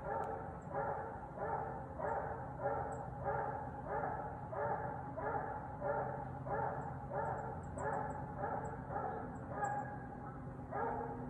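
A hound barking at an animal it has treed: a steady, unbroken run of barks, about three every two seconds.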